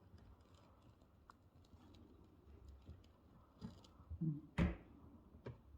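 Faint clicks and light knocks of hands working a white release tab on the inside of a car door panel, with one sharp click about four and a half seconds in.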